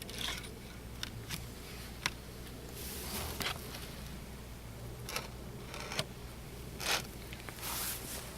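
Handling noises: scattered clicks, short scrapes and rustles, over a steady low hum.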